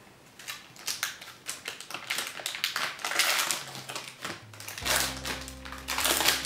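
Wrapper of a trading-card pack crinkling and tearing as it is pulled open by hand, in quick crackly bursts. Background music comes in near the end.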